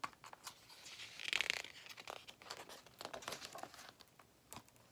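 Paper pages of a picture book being turned, rustling and crinkling in a string of short scrapes and clicks, loudest about a second and a half in.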